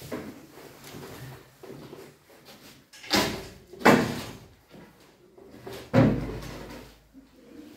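Chalk knocking hard against a chalkboard while writing: three sharp knocks, about three, four and six seconds in, each fading briefly in the room, with fainter chalk sounds between.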